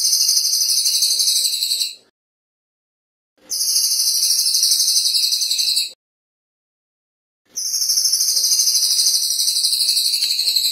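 Cililin (crested jay) giving its high, very fast rattling call in long bursts. One burst ends about two seconds in, a second runs from about three and a half to six seconds, and a third starts about seven and a half seconds in and carries on.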